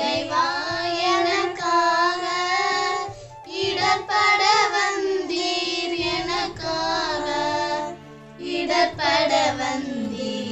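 A high voice singing a hymn over instrumental accompaniment, in long held phrases that pause briefly about three and eight seconds in.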